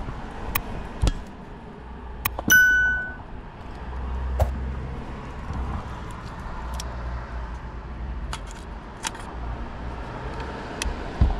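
Hard plastic clicks and taps as the vacuum actuator chamber is worked off a diesel throttle body, with one short ringing ding about two and a half seconds in, over a low steady background rumble.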